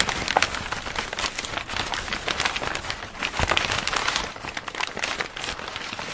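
Dense, irregular crackling and crinkling made of many small clicks with no tone in it, a little louder between about three and four and a half seconds in.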